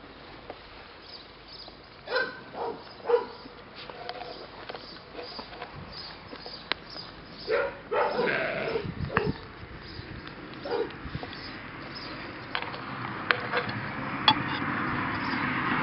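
Labrador retriever puppies giving short, high yips: three quick ones about two seconds in, a cluster around eight seconds in, and another near eleven seconds.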